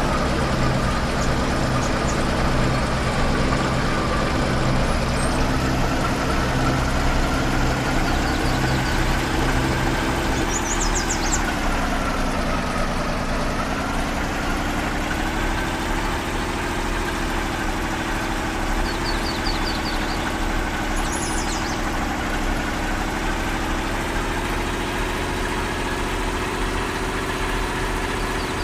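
Off-road vehicle's engine running steadily at low revs; its pitch dips about halfway through, then recovers.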